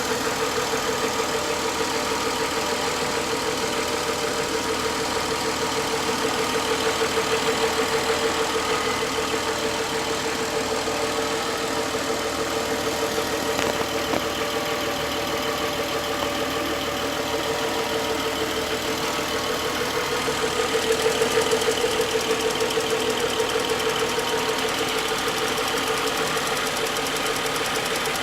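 BMW N55 turbocharged straight-six idling, warmed up a few minutes after a cold start, with a rapid, steady knock running through the idle. The knock does not appear right after the cold start, and fitting new-type VANOS units has not cured it.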